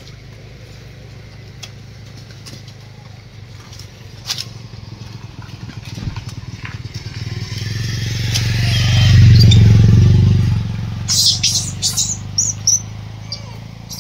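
A motor vehicle, likely a motorcycle, passes by: its engine hum grows louder to a peak about nine to ten seconds in, then fades. A few sharp high clicks follow near the end.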